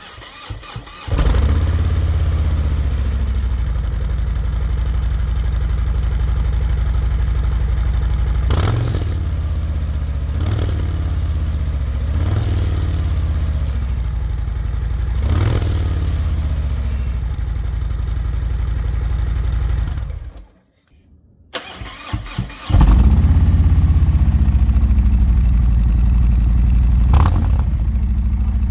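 Harley-Davidson Electra Glide V-twin starting through its exhaust and idling, blipped four times. After a brief break the engine starts again on slip-on mufflers, louder this time, and is blipped once more near the end, in a before-and-after exhaust comparison.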